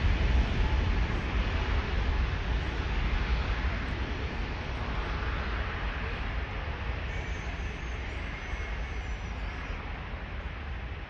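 Airbus A380's jet engines roaring with a deep rumble, the sound slowly fading as the airliner draws away.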